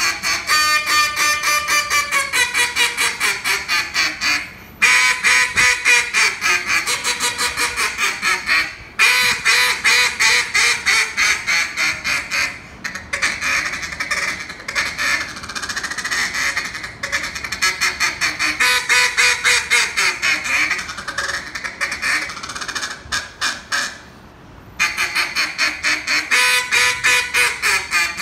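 A Billy Starks wooden duck call blown in a calling routine. It gives runs of rapid quacks that step down in pitch, broken by short pauses for breath. Through the middle comes a quieter, faster run of notes before the loud descending quacks return near the end.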